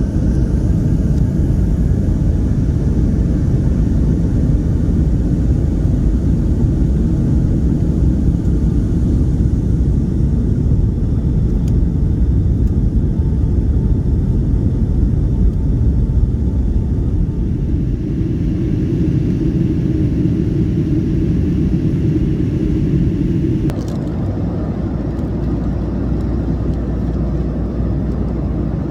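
Jet airliner cabin noise: the steady, loud low rumble of the engines and airflow heard from inside the cabin. About 24 seconds in, the hiss above the rumble drops away and the level eases slightly.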